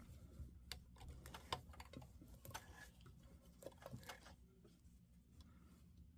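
Faint, irregular light clicks and taps from handling work at a sewing machine, with no steady run of the machine stitching.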